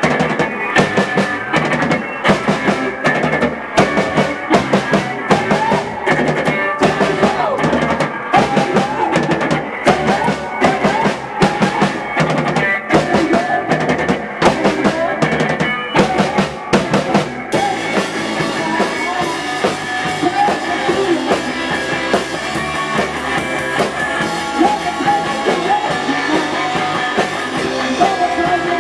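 A rock band playing in a small room: electric guitar, bass and a drum kit with a steady beat. About seventeen seconds in, cymbals come in and keep washing over the rest.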